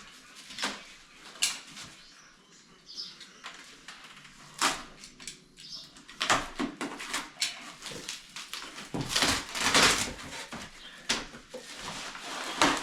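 Irregular knocks, clicks and handling noise from shower-unit parts and their packaging being picked up and sorted, with a longer, louder stretch of it about nine to ten seconds in.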